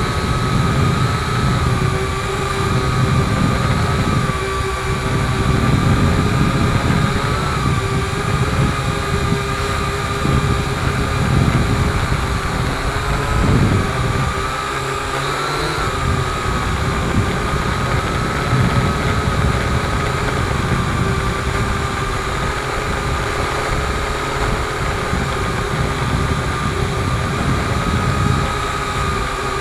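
Multirotor drone's electric motors and propellers whirring with a steady whine that wavers slightly in pitch, with gusty wind rumble on the onboard microphone.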